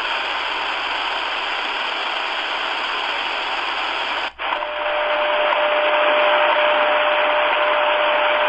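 Tecsun PL-310ET shortwave radio's speaker hissing with static on an empty 9810 kHz channel. About four seconds in it cuts out briefly as it jumps to the next memory preset, 10,000 kHz, the standard time-signal frequency. There a steady tone sounds through the static.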